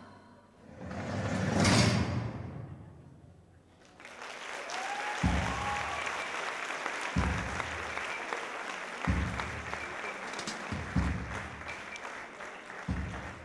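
The music ends on a swelling final chord, then a theatre audience applauds from about four seconds in, with a short whistle. Through the applause comes a low thud about every two seconds.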